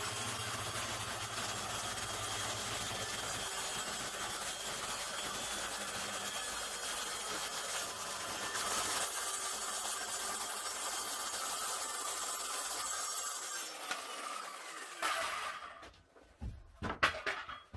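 Circular saw running along a clamped guide rail, cutting through a plywood-cored furniture board panel: steady motor whine with cutting noise for about fifteen seconds. The blade then winds down, falling in pitch, and a few knocks follow near the end.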